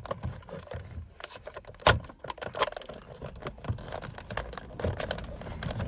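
Small clicks and rattles of plastic trim and hardware being handled while a dashboard phone mount is fitted, with one sharp click about two seconds in.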